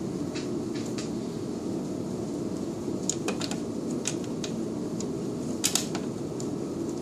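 Scattered light clicks and taps as the collimator housing cover is pressed into place and a screwdriver touches the panel, with a sharper cluster of clicks near the end, over a steady background hum.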